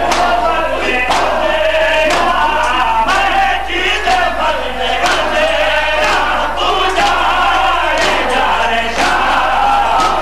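A male reciter leads a noha, a Shia mourning lament, chanted into an amplified microphone, with a crowd of men joining in. Their chest-beating (matam) strikes fall in unison about once a second.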